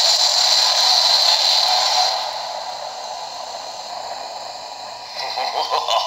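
Pipe bomb going off as a cartoon explosion sound effect: a loud rushing noise that holds for about two seconds and then slowly fades away.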